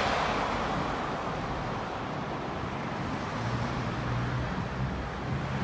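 Street traffic: the tyre noise of a passing car fades over the first couple of seconds, then the low hum of an approaching vehicle's engine comes in from about three and a half seconds in.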